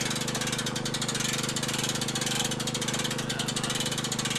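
An engine running steadily with an even hum and no change in speed.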